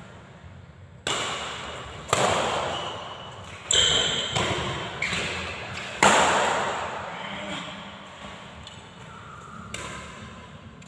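Badminton rackets striking a shuttlecock in a rally: four sharp hits about one to two seconds apart, the loudest about six seconds in. Each hit rings on in the echo of a large hall.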